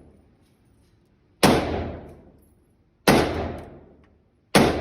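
Three gunshots, about a second and a half apart, each sharp crack followed by a ringing tail that dies away over most of a second.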